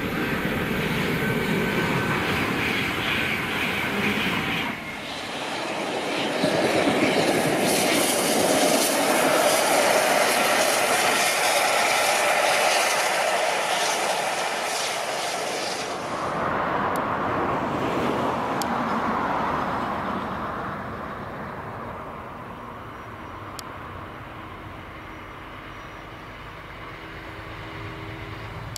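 A run of trains passing: an LNER Azuma high-speed train approaching on the main line, then a steam-hauled train of coaches rushing past with wheels clattering on the rails, the loudest part, then, from about sixteen seconds in, an East Midlands Railway Class 170 Turbostar diesel unit going by and fading to a low diesel engine hum.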